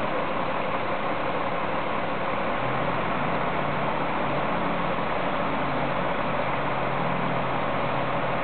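Crane engine running steadily while it hoists a timber lock-gate balance beam, with a low steady hum setting in about three seconds in, over a constant hiss.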